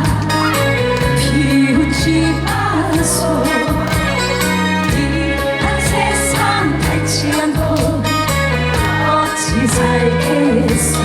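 Trot song performed live: a woman singing the melody over loud backing music with a steady drum beat.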